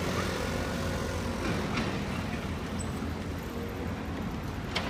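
Road traffic: a steady low rumble of vehicles on the street, with a sharp click just before the end.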